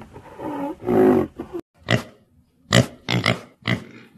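Pig grunting in short, sharp grunts about every half second, starting about two seconds in, after a low, drawn-out animal call at the start.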